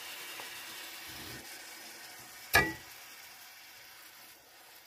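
Steak frying in butter in a cast-iron skillet, a steady sizzle that slowly grows quieter. About two and a half seconds in there is one sharp clink of a metal fork against the pan.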